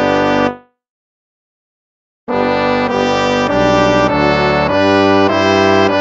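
Instrumental hymn music: a held chord ends about half a second in, silence for about a second and a half, then the next hymn starts with chords changing about every half second.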